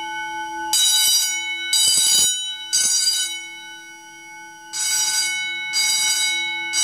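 Building fire alarm sounding: loud ringing bursts about once a second, with a short pause partway through, over a steady alarm tone.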